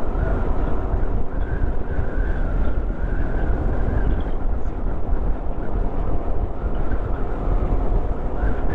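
Motorcycle riding at speed: a steady rush of wind and engine noise.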